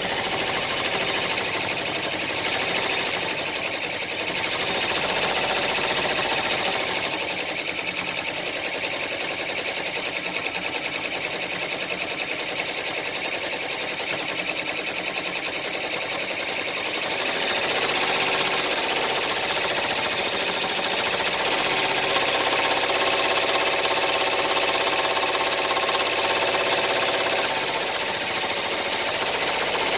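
Baby Lock Enterprise ten-needle embroidery machine stitching a design: a fast, steady mechanical needle clatter that shifts in tone a little over halfway through.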